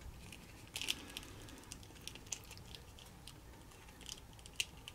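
Faint handling noise of fingers turning a small plastic action figure: scattered light clicks and rubbing against its hard plastic and soft jacket, with a slightly louder cluster of clicks about a second in.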